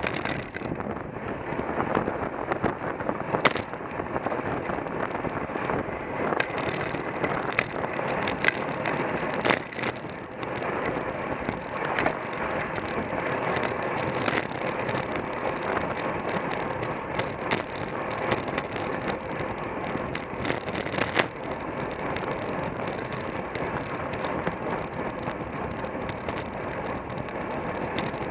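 Road bicycle rolling at speed in a race: steady rushing noise from wind and tyres, with scattered sharp clicks and rattles.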